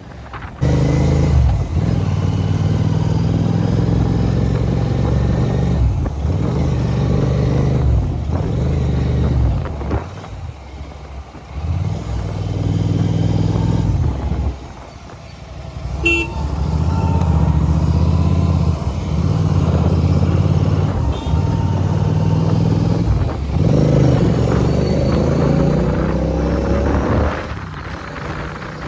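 Hero XPulse 200 4V's single-cylinder engine running under way, its pitch climbing again and again as it pulls through the gears, with dips about ten and fifteen seconds in where the throttle is eased.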